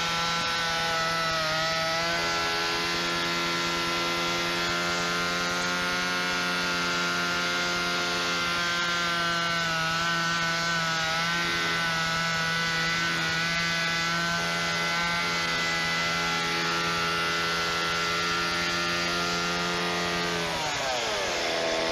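Gas chainsaw running at high speed as it carves a pumpkin, the engine note holding nearly steady with slight wavering, then its revs drop sharply near the end.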